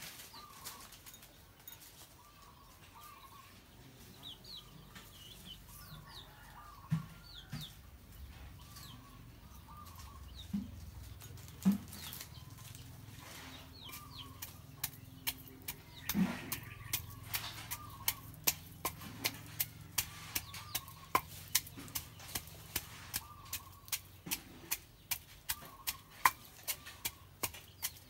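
Wooden pestle striking in a stone mortar: a few scattered strikes, then a steady pounding of about two strikes a second through the second half. Chickens cluck in the background.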